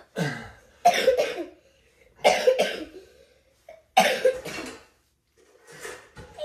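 A man's sharp, forceful exhalations, one with each squat rep, roughly every one and a half to two seconds, as he squats with about 25 kilos on his shoulders.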